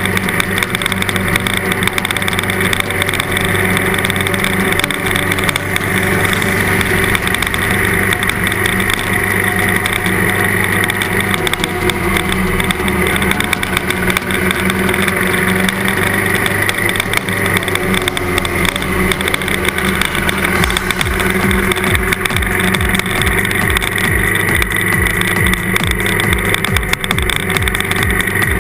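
Trail motorcycle engine running at a steady cruise on a dirt track, with wind rush over a camera mounted by the front mudguard.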